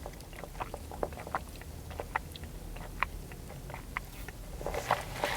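A person chewing a mouthful of sub sandwich close to the microphone: soft, irregular mouth clicks and smacks, several a second.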